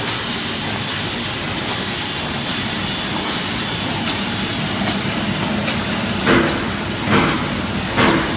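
ZY440 automatic book endsheet gluing machine running: a steady mechanical whir and hiss over a low hum, with three louder bursts a little under a second apart near the end.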